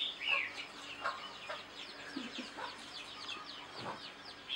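Farmyard birds calling: a steady patter of quick, high chirps with a louder call near the start and a few lower chicken clucks among them.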